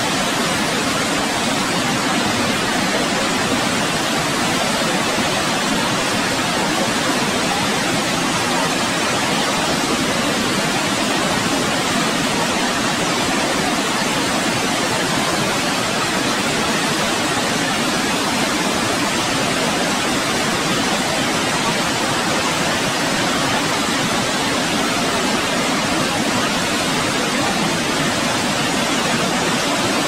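Dettifoss waterfall: a steady, unbroken rush of heavily falling water.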